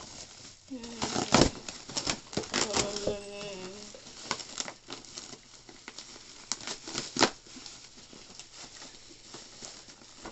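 Bubble wrap and packing tape being crinkled and pulled apart by hand, an irregular run of sharp crackles.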